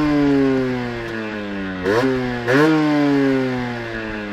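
1993 Aprilia Pegaso 50's 50cc Minarelli AM3 two-stroke single-cylinder engine revved three times. Each time the pitch jumps up quickly and then sinks slowly as the throttle is let off, and the sound settles lower and steadier near the end.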